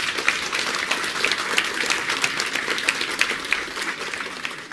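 Audience applauding, many hands clapping densely; it eases off a little near the end.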